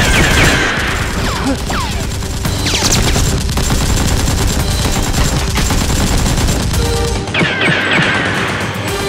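Rapid-fire gunfire sound effects over background music, with several falling whistling sweeps, about a third of a second in, around the middle, and near the end.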